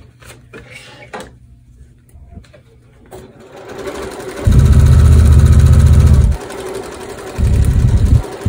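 A sewing machine stitching a paper-pieced quilt seam, starting about four seconds in after a few light handling clicks. It runs in two bursts with a short pause between them.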